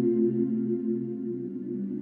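Ambient background music: slow, sustained low notes held without a clear beat.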